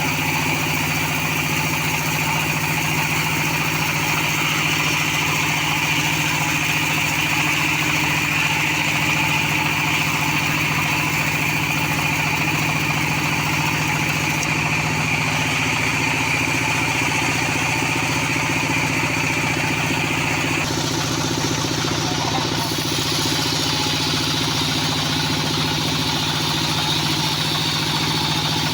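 Band sawmill running steadily with a constant engine-like drone, sawing sonokeling (Indian rosewood) into beams. The higher, whining part of the sound shifts in pitch about two-thirds of the way through.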